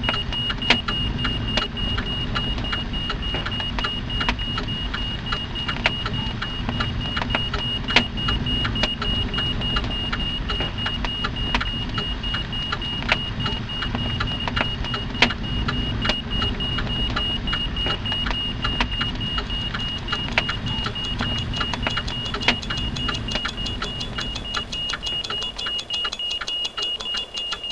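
Fire burning, with irregular crackles and pops over a low rumble, and a steady high whine beneath. Near the end the rumble fades and the crackles go on alone.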